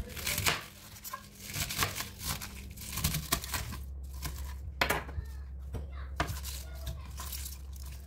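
Chef's knife cutting through raw cabbage leaves and knocking on a bamboo cutting board in irregular strokes. A steady low hum starts about halfway through.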